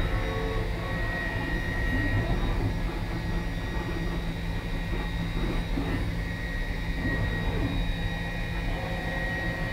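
DN Solutions DVF 5000 five-axis CNC mill running a half-inch lollipop end mill at 10,000 RPM to deburr the edges of a 1018 steel part. It makes a steady machine drone with a thin high whine over it.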